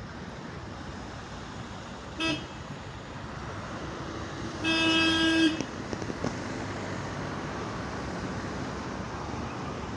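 Steady traffic noise from vehicles moving slowly, with a short vehicle horn beep about two seconds in and a longer, steady horn toot of under a second around the middle.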